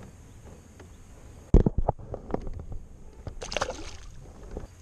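Handling noise in a plastic kayak: a sudden hard knock about a second and a half in, with a quick cluster of clatter after it, then scattered small clicks and a short splash as a small rock bass is let back into the river.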